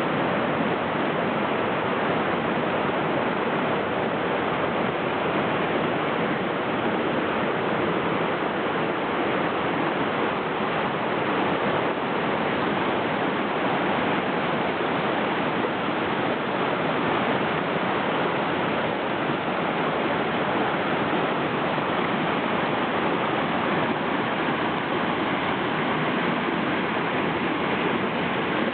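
Steady rush of river water running over rocks, an even unbroken roar with no change in level.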